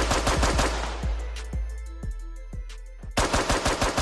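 Machine-gun sound effect in a hip hop track's outro: a rapid burst of shots that thins out to scattered single shots, then another rapid burst starts about three seconds in. A deep bass from the beat runs under it and fades out about three seconds in.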